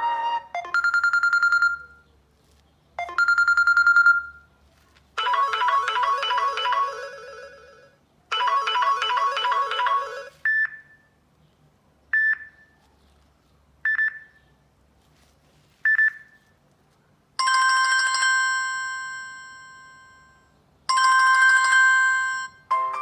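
Samsung Galaxy S5 stock ringtones playing one after another. First a short electronic tone sounds twice, then a fast repeating chime pattern twice, then four short beeps about two seconds apart, and last a longer ringing chime twice, dying away each time.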